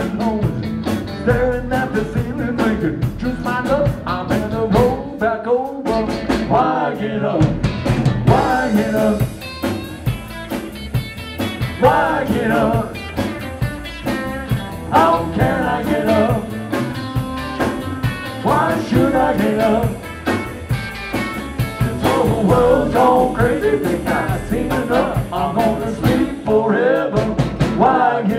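Live rock and roll band playing with an upright bass, an electric guitar and a drum kit.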